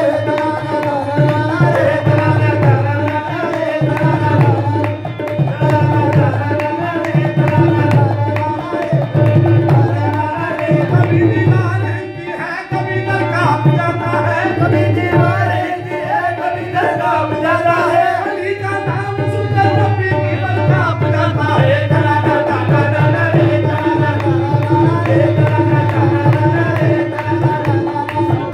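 Qawwali music: a man singing over a harmonium's sustained reed chords, with a steady hand-drum rhythm from dholak and tabla. The music thins out briefly about 12 seconds in.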